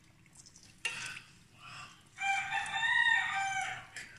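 A rooster crowing, a short note about a second in and then a long held call in the second half, over the faint sizzle of battered banana slices frying in oil.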